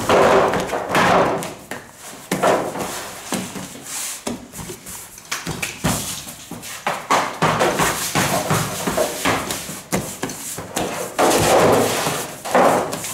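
Pan de muerto dough being pressed and rolled by hand on a floured stainless-steel worktable: irregular thuds and rubbing as it is worked into logs.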